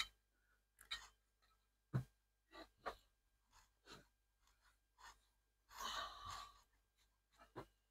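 Near silence with faint scattered clicks and a short soft hiss about six seconds in.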